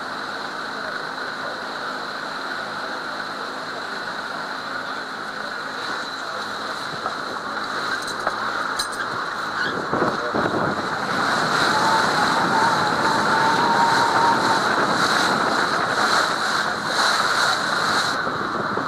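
Wind and water noise on a camcorder microphone aboard a boat on choppy water, growing louder about halfway through, with a faint steady high whine.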